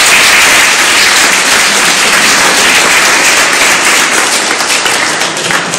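Audience applauding loudly, the dense clapping slowly thinning toward the end into more separate claps.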